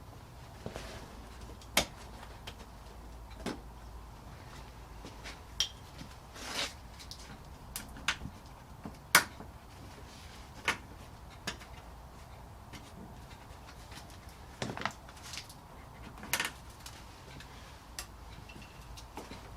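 Irregular clicks, clinks and knocks of metal tools and plastic car parts being handled, about fifteen separate sharp strikes spread unevenly.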